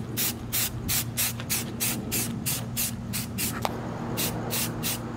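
Aerosol spray-paint can spraying in quick short bursts, about three or four a second with a brief pause past the middle, laying down a first coat of paint.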